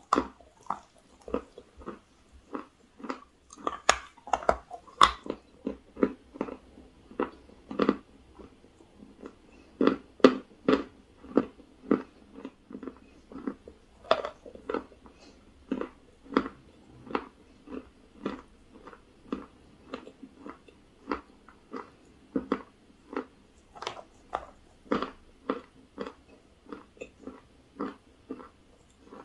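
A person biting into and chewing a piece of chalk-and-clay cake close to the microphone. It gives a run of short crunches, roughly one to two a second, louder and more frequent in the first few seconds.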